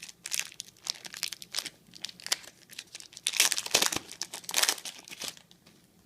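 A trading card pack's wrapper being torn open and crinkled by hand, in rapid, irregular crackles that stop about five seconds in.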